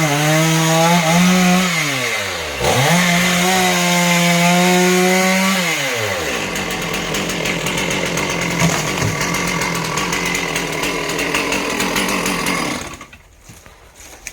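Two-stroke chainsaw running at high revs, its pitch wavering and dipping with the load as it cuts, then winding down about six seconds in. A loud rushing noise with many small crackles follows and stops abruptly near the end.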